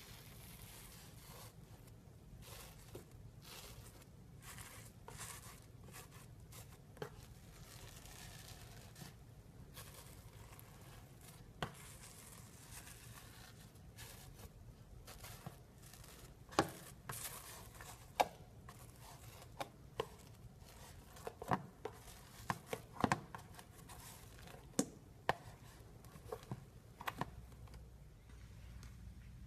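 Sponge slime being stretched and squeezed by hand, giving irregular crackling, tearing sounds and sharp little pops, sparse at first and more frequent and louder in the second half.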